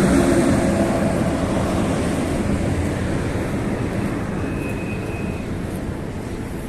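Motor vehicle engine rumbling past and fading as it moves away.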